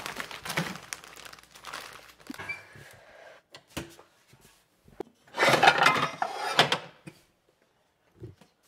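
Plastic zip bags of frozen chicken bones rustling as they are handled, then a loud clatter of metal pots and lids knocking together as a stockpot is pulled from a drawer of cookware, with a few light knocks as it is set on the stove.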